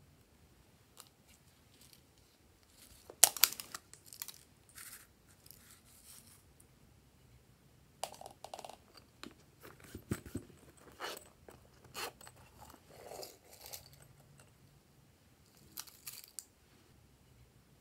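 Close-up handling of makeup and plastic containers over trays of slime: scattered sharp clicks, taps and crinkly scrapes, loudest about three seconds in. Near the end comes a short patter of sequins dropped into the tray.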